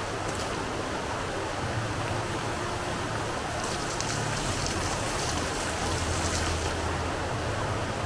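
Water running and splashing steadily through an upside-down waterfall fountain, with the hiss of the water growing brighter for a few seconds in the middle. A low steady hum runs underneath.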